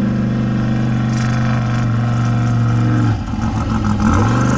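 Off-road race vehicle engine running at steady high revs, backing off just after three seconds in, then revving back up near the end.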